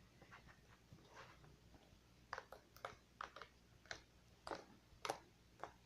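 Slime being handled, giving a series of small sharp clicks and pops, about eight of them in the second half.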